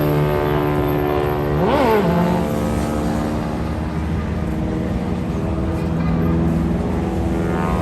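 AT-6 Texan's Pratt & Whitney R-1340 radial engine and propeller droning steadily in flight, with a brief rise and fall in pitch about two seconds in.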